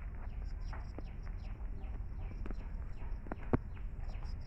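Chicken chicks peeping over and over in short falling chirps, with a few sharp clicks about three seconds in over a low rumble.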